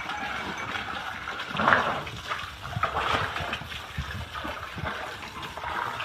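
Water splashing and gushing, with a louder burst just under two seconds in.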